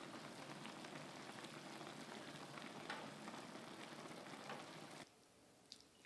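Pot of sukiyaki simmering uncovered on a gas burner: a quiet, fine crackle of bubbling broth that cuts off suddenly about five seconds in.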